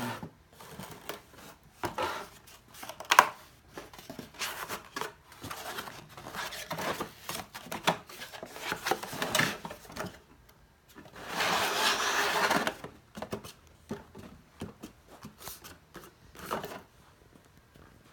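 Paperboard panels of a folding tiered display stand being folded, slid and pressed into place by hand: irregular rustling and scraping of card with sharp clicks, the loudest click about three seconds in and a longer scraping stretch a little past the middle.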